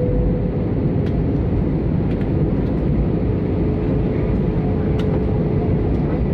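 Steady rumble of an Airbus A320's engines and rushing air heard inside the passenger cabin, with a faint steady whine running through it.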